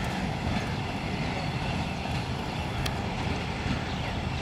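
Departing diesel-hauled passenger train, the Tezgam Express, running away along the track with a steady, even rumble, and one brief sharp click about three seconds in.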